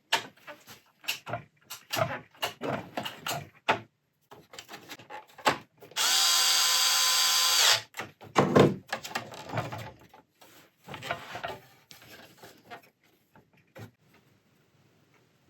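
A run of small clicks and knocks, then about six seconds in a small electric motor runs at a steady pitch for just under two seconds and stops. More scattered knocks follow.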